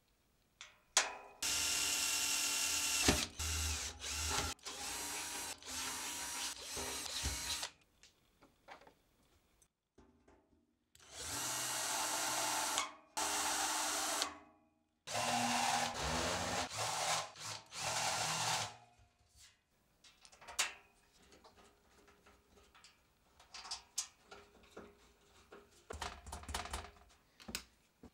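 Power drill running in three bursts of a few seconds each as its bit works into the sheet-steel top of a PC case. After the drilling come scattered light clicks and taps.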